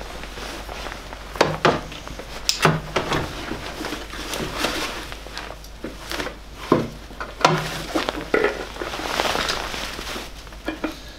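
Handling noises while a spin-on oil filter is fitted by hand in a Mini's engine bay: a string of irregular knocks and clinks against metal engine parts, with rustling of a work jacket.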